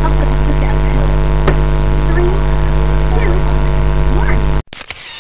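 Loud, steady electrical mains hum with a buzz of many even overtones, picked up in a photo booth's recording. A sharp click about a second and a half in; near the end the hum cuts off abruptly, leaving a brief, different sound that fades out.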